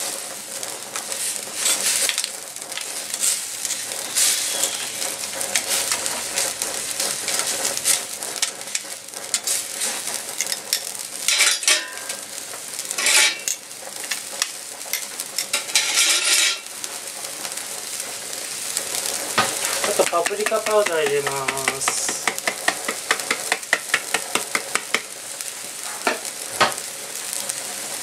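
Seafood broth bubbling and sizzling in a paella pan, with metal tongs clinking and scraping against the pan as the prawn heads are pressed to release their flavour. The scraping comes as a few louder bursts around the middle.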